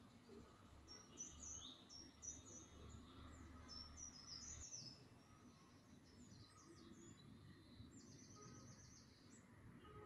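Faint bird chirping: a run of quick high chirps over the first few seconds, then a rapid high trill near the end. Under it, a low hum cuts off suddenly about halfway through.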